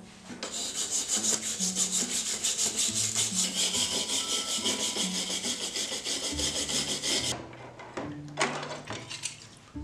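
Stiff wire brush scrubbing rust off steel bench straps soaking in vinegar: rapid back-and-forth scraping strokes, several a second, stopping about seven seconds in.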